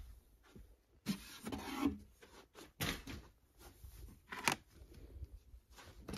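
Rubbing and rustling handling noise with a few sharp light knocks, as a framed photo is lifted out of a wooden shelf.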